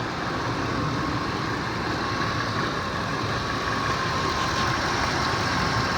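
2002 Ford F150 engine idling steadily, with a thin steady whine over the running; the engine has misfires that the mechanic puts down to over-fueling injectors on cylinders 1 and 2.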